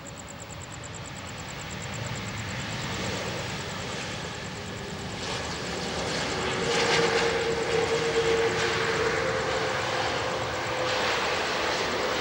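Airbus A330-343's Rolls-Royce Trent 700 jet engines on the landing rollout, growing louder as the airliner passes and loudest about seven to eight seconds in, with a steady hum under the engine noise, then fading near the end.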